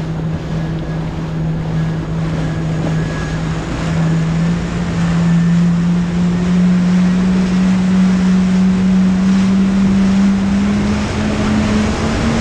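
Jet ski engine running at speed, its pitch climbing a little about four seconds in and again near the end, over a steady rush of wind and water.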